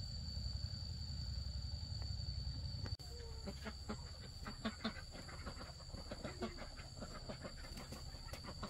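A low rumble for about three seconds, then chickens clucking in short, scattered calls among light clicks and scratches. A steady high insect drone runs underneath.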